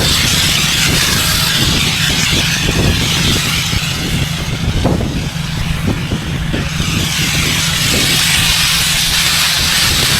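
Gas-engine pressure washer running steadily, with the hiss of its high-pressure spray on pavement. The spray hiss eases off for about two seconds in the middle, then comes back.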